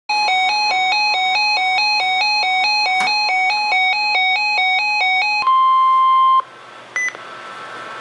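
NOAA weather radio receiver sounding its alert: a loud warble switching between two tones about two and a half times a second for about five seconds. It is followed by about a second of the steady 1050 Hz NOAA Weather Radio warning tone that cuts off suddenly, then a short beep from the radio's buttons.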